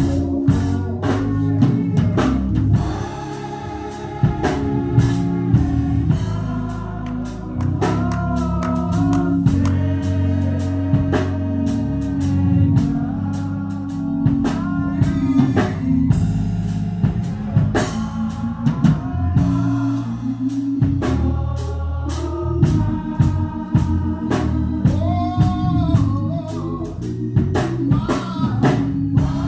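Live gospel music: a church band with drum kit and steady bass notes, and voices singing over it with vibrato.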